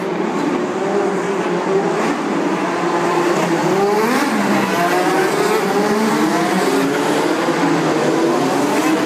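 A group of IndyCar race cars going past at racing speed: several engines at once, their pitches climbing as they accelerate and sliding as they pass, with one clear rising sweep a little before halfway.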